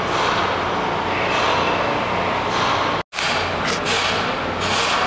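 Steady low machinery hum under a broad rushing noise, cut off for an instant about three seconds in; after the cut, a hiss swells roughly once a second.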